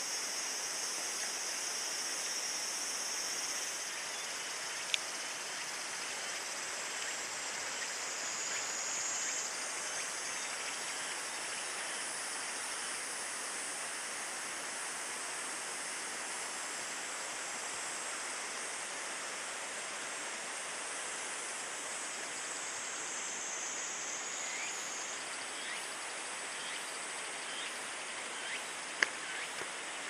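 Steady rush of falling water from a waterfall, with a high insect drone on top that shifts pitch a few times. A faint click about five seconds in and a couple of sharp clicks near the end.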